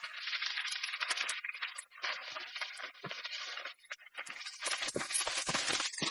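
Dry, scratchy rustling and crackling in uneven spurts, like many small prickly plant stems skittering and scraping over the ground: sound-effect foley for animated thistle weeds running.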